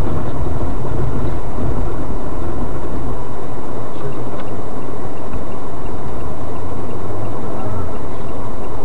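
Loud, steady low rumble of road and engine noise picked up by a dashcam inside a car, with two faint ticks about four seconds in.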